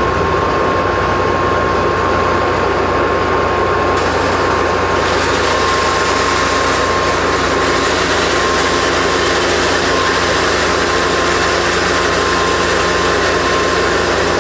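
Mini combined rice mill running on its 3 hp electric motor, its grinder milling maize into meal: a steady machine hum with a steady whine. A rushing noise fills out about four seconds in.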